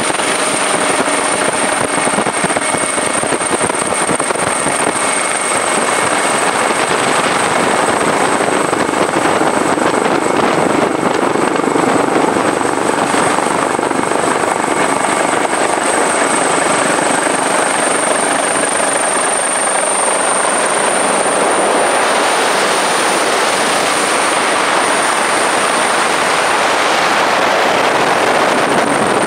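A helicopter's steady noise heard from on board: an even, loud rush with a thin, high whine running above it.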